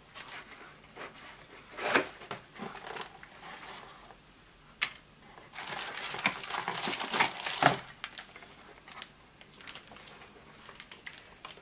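Cardboard box being opened and a plastic-bagged linear actuator lifted out: scattered rustling of cardboard and crinkling of the plastic bag, with a few sharp clicks. The crinkling is densest around the middle.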